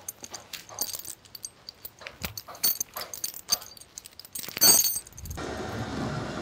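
Loose lifting chains clinking and rattling in a string of light clicks, with one louder clank just before five seconds in. Then a winch motor starts up and runs steadily, pulling the walnut log onto the trailer.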